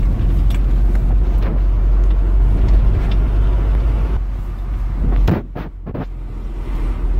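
Car driving, heard from inside the cabin: a steady low rumble of engine and road noise. The rumble dips briefly about five seconds in.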